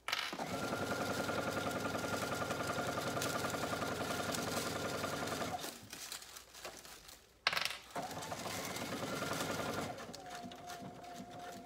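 Brother Innov-is computerized sewing machine running a straight stitch through a zipper and vinyl at a steady speed for about five and a half seconds, then stopping. A sharp click follows, then a shorter, quieter run of stitching.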